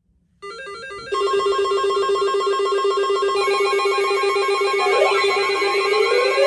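Electronic emergency-alert tone: a loud, rapidly warbling synthesized ringing made of stacked tones. It begins about half a second in, grows louder about a second in, and picks up rising sweeps near the end.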